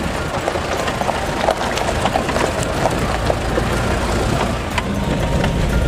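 Cabin noise inside a moving Isuzu Elf microbus: a steady low engine and road rumble, with frequent small rattles and knocks from the body.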